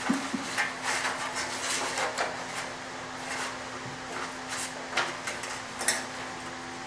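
Sheets of paper being handled and turned: a run of rustles and light crackles in the first couple of seconds, then a few sharper ones later on, over a steady low electrical hum.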